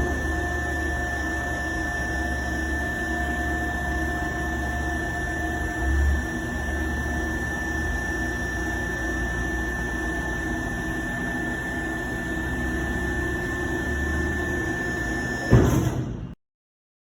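Wastequip 6030XHD vertical cardboard baler's 15 hp electric motor and hydraulic pump running steadily with a constant whine and low hum. It swells briefly about six seconds in, gives a knock near the end, then stops abruptly.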